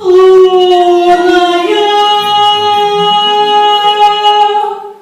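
A woman's voice sings long held notes with little accompaniment under it. The voice steps up in pitch once, about a third of the way in, and holds the higher note until the sound drops away near the end.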